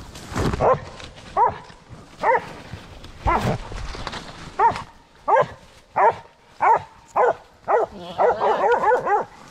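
Deer hound barking close by, a string of single barks about two-thirds of a second apart, breaking into a fast run of short barks near the end.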